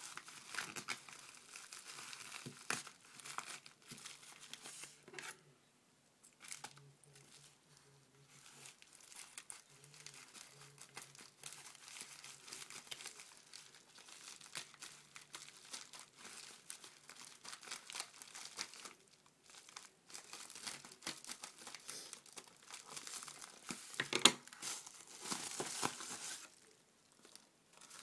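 A paper mailer envelope being opened by hand: crinkling and rustling as it is handled, cut with scissors and torn open, with a sharp, loud rip about three-quarters of the way through.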